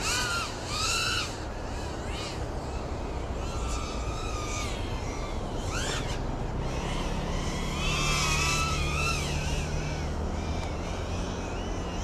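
FPV quadcopter's motors and propellers whining, the pitch swinging up and down in short arcs as the throttle changes, over a low steady rumble.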